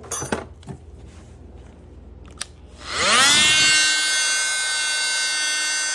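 Fein oscillating multi-tool switched on about three seconds in, its motor speeding up to a steady high whine. It is being used to cut away the leftover thread of a snapped triple clamp bolt.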